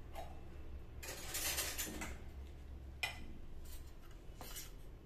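Steel kitchen utensils being handled: a rustling scrape about a second in, one sharp clink about three seconds in, and a shorter scrape near the end.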